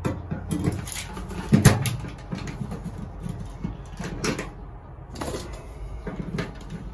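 Hand pop-rivet gun worked on a 3/16-inch pop rivet in an aluminum angle rail: a series of squeeze clicks and metal clunks, the loudest about a second and a half in.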